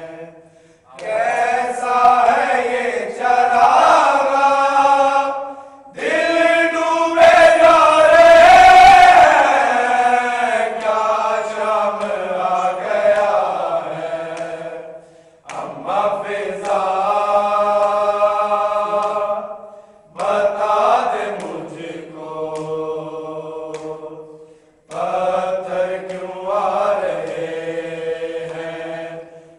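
Group of men reciting a noha, a Shia lament, in unison with no instruments. They sing long phrases with a breath of about a second between them, and the phrase about seven to ten seconds in is the loudest.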